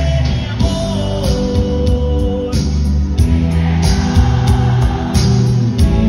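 A live band playing through a concert PA, with drums keeping a steady beat under electric guitar and keyboards, heard from the audience.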